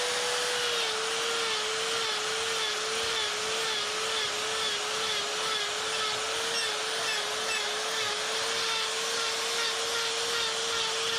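Die grinder with a carbide flame burr running at speed and cutting fur texture into wood. A steady high whine drops slightly in pitch about a second in as the burr bites, then wavers gently with the load over a hiss of grinding.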